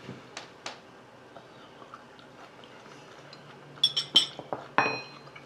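A metal fork clinking against a glass jar and a ceramic plate. There are a couple of light taps near the start, then a quick cluster of clinks about four seconds in, the last one ringing briefly.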